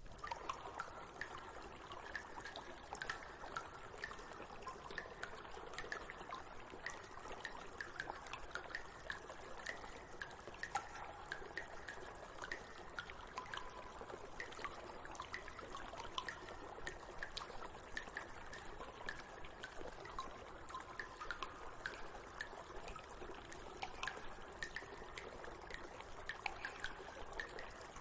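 Water trickling steadily, with many small splashing clicks and drips.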